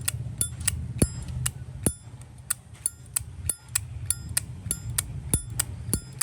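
Zippo lighter lids being flicked open and snapped shut over and over, about three sharp metallic clicks a second, each with a short ringing ping: the lighter's 'âm', the sound collectors judge it by.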